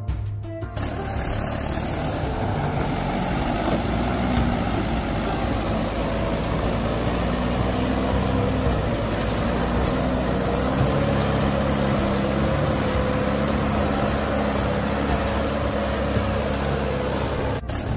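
Tractor diesel engine running steadily at low revs, its pitch shifting slightly at times. A brief click comes near the end.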